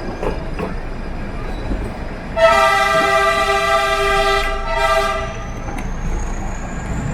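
Diesel locomotive horn of the Nilgiri Mountain Railway toy train sounding one long blast of about three seconds, starting a couple of seconds in, over the low rumble of the train.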